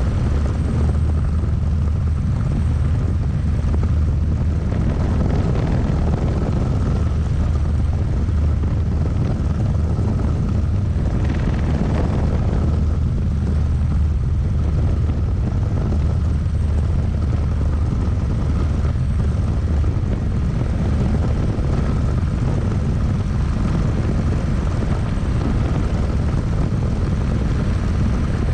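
Single-seat turbine-powered experimental helicopter of Eagle R&D design in steady flight, heard from inside the cockpit: a constant low rotor beat with a thin steady whine above it.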